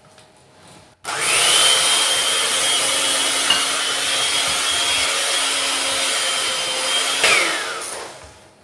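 Electric hand mixer with dough hooks kneading flour into a shortcrust dough of butter, sugar and egg yolk. It switches on about a second in, runs steadily with a high whine for about six seconds, then is switched off and winds down with a falling whine.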